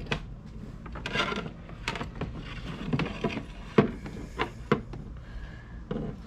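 Straightened wire coat hanger rubbing and clicking against a plastic kayak hull as it is fed through a drilled hole, in irregular scrapes and taps with a sharper click a little under four seconds in.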